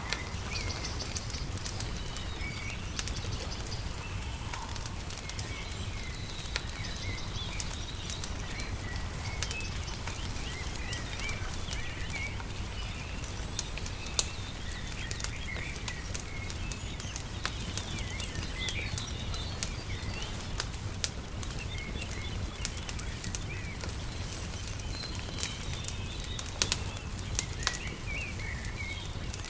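Wood fire crackling, with sharp pops scattered throughout and a few louder ones about halfway through and near the end, over a steady low rumble; small birds chirp in the background.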